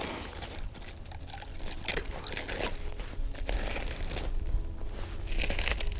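Slush and broken ice crunching and crackling in an ice-fishing hole as a gloved hand works through it, in irregular bursts.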